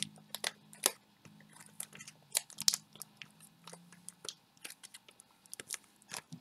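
Irregular small clicks and crackles, several a second, over a faint steady low hum.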